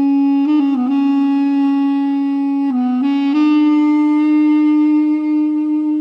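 Background music: a solo wind instrument playing a slow melody of long held notes, sliding between pitches about a second in and again about three seconds in.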